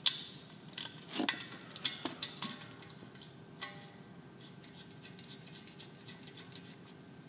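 Light metallic clicks and clinks of a refrigerant hose fitting being worked onto the valve of a refrigerant recovery cylinder by hand. Several sharp clicks cluster in the first couple of seconds, with a few fainter ticks later.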